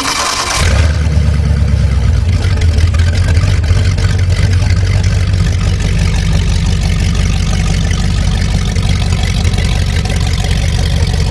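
Fuel-injected 5.7-litre Vortec V8 marine engine cranking briefly on its starter and catching less than a second in, then running steadily at idle.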